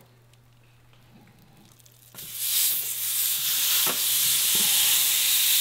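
About two seconds in, a loud sizzle starts suddenly as beef goes into a hot pan, then keeps frying steadily, with a couple of light knocks in it.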